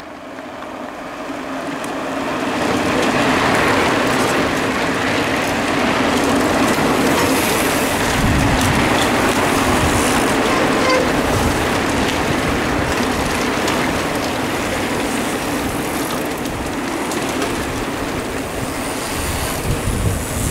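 A large pack of mountain bikes riding over cobblestones: a steady rattling rumble of many tyres and drivetrains. It swells over the first few seconds as the riders come close, then holds.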